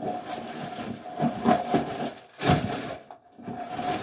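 Irregular rustling and rubbing as a new purse and its packaging are handled, with several louder scrapes. A faint steady hum sits underneath.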